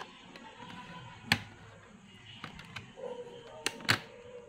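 Sharp plastic clicks and taps from a Lenovo laptop's bottom access cover being worked loose by hand: one loud snap about a second in, then two quick snaps close together near the end as the clips let go.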